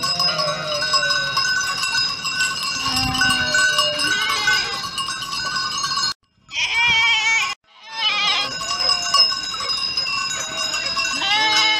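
A mixed flock of sheep and goats on the move, many livestock bells ringing and clanking together without a break, with sheep and goats bleating now and then. About six seconds in the sound cuts out twice in quick succession, with a second of higher, wavering bleats between the gaps.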